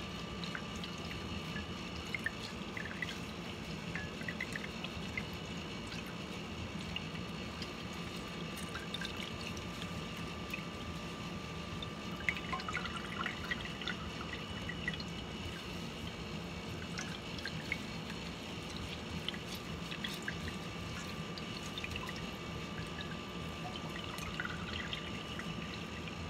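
Liquid trickling and dripping into a large pot, with many small scattered drips over a steady background hum.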